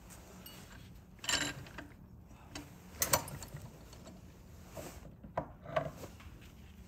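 Metal tools and parts being shifted and set in place by hand: a few separate clanks and knocks, the sharpest about three seconds in, with quiet handling between.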